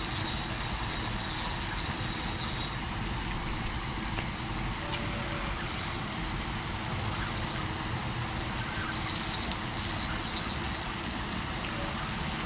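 Steady outdoor rumble and hiss, like wind on the microphone and distant road traffic, with short stretches of a fainter high hiss now and then.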